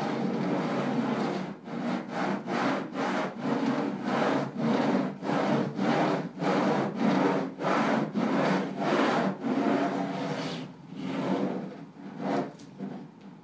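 A bundle of 480 pens bound together, scraped across paper in repeated back-and-forth strokes, about two a second: a rough scratching rub. The strokes grow fainter and sparser near the end.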